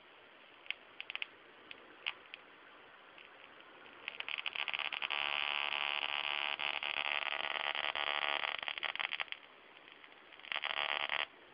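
High-voltage shocker sparking across its 5–7 mm discharge gap: a few single sharp snaps at first, then a loud crackling buzz of rapid sparks for about five seconds that stops, and a second, shorter burst near the end.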